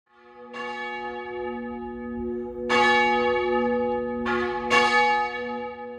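Church bells ringing: fresh strokes about half a second in, near three seconds, and twice in quick succession near four and a half seconds, each left to ring on and fade.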